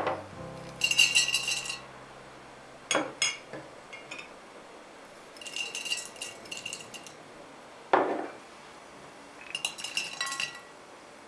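A metal utensil clinking rapidly against a ceramic or glass bowl in three bursts of about a second each, with a ringing note in the clinks, as if something is being stirred or beaten. A few single knocks of dishes being set down fall between the bursts.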